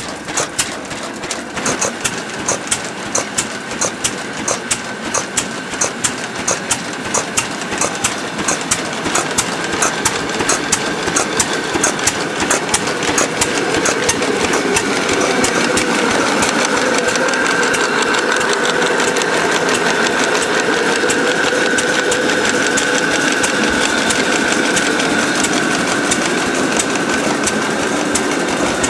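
Lorenz stationary engine running with a regular beat, driving a belt-driven grain mill that is grinding grain. About halfway through the mill's steady grinding whine grows louder and comes to the fore.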